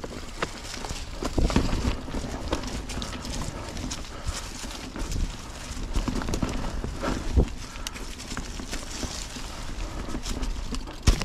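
Mountain bike being ridden over a rough dirt trail: the tyres rolling and the bike rattling and knocking over bumps, a dense, irregular run of clicks and thumps.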